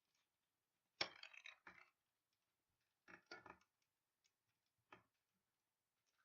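Faint clicks and light clatter of small hard objects being handled, in short clusters about a second in, around three seconds in, and once near five seconds.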